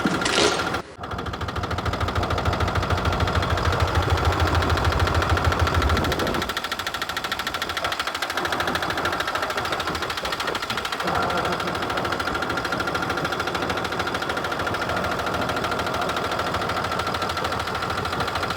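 A running engine with a rapid, even knocking rhythm, its low-end clatter strongest in the first few seconds and easing off about six seconds in.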